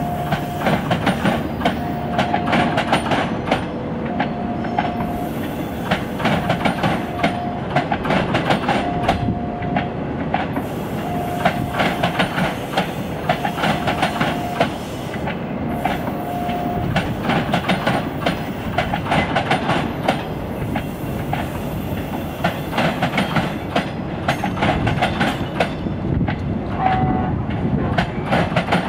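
A long train of new executive-class passenger coaches rolling past, its wheels clattering over the rail joints in a steady clickety-clack. A short tone repeats about every one and a half seconds through the first half and then stops.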